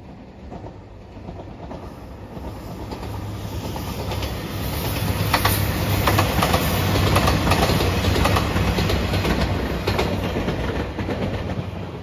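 Three-car JR Shikoku 2700 series diesel express train passing close by. Its engine drone builds as it approaches, then the wheels click over the rail joints several times as it goes past, and the sound fades as it pulls away.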